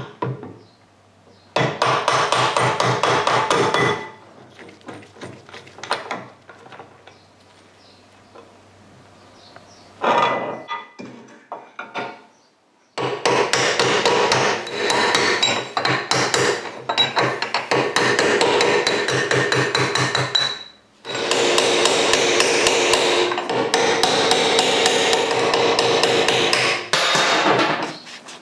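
Rapid hammer blows in runs: a short run of strikes early, then two long runs in the second half.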